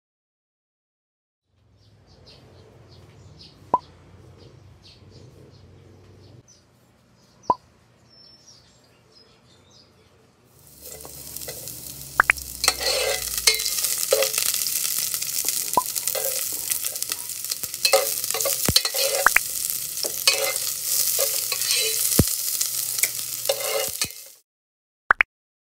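Onion and garlic sizzling in a hot pot, with scattered clicks and knocks of a utensil. A fainter stretch with a few clicks comes first, the sizzle turns loud about ten seconds in, and it cuts off sharply near the end.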